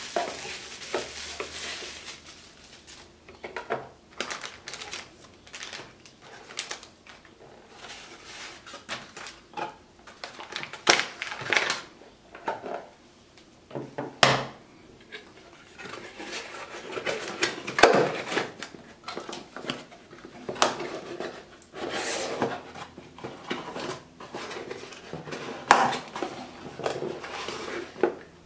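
Unboxing handling of a cardboard box, bubble wrap and plastic bags: irregular rustling and crinkling with knocks and taps as parts and a power brick are set down on a wooden table.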